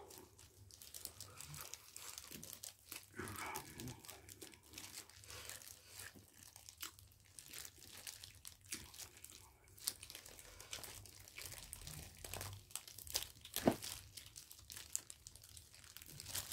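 Faint crinkling and rustling of thin disposable plastic gloves as gloved hands tear kimchi apart, made of many small irregular crackles with one louder crackle late on.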